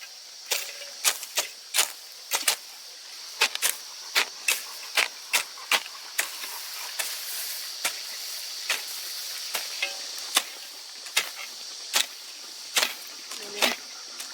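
A series of short, sharp clicks or scraping strokes at an irregular pace, roughly one or two a second, over a steady high-pitched insect drone.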